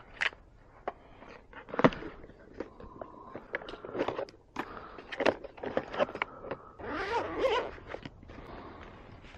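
Shooting gear being handled by hand: scattered clicks and knocks from an open hard case and its cartridges, with rustling, then a longer rustling scrape near the end as a padded pistol bag is opened.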